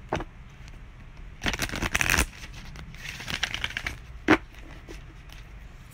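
A deck of oracle cards being shuffled by hand: two bursts of rapid papery flutter, then a single sharp knock about four seconds in.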